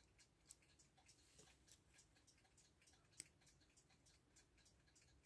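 Near silence with a few faint clicks of small brass clock parts being handled while a clock movement's plates and wheels are fitted together, the sharpest about three seconds in.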